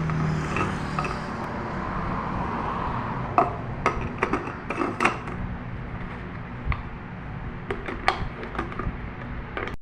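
A small blender motor running with a steady hum, and sharp clicks and knocks of hard pieces against its jar throughout.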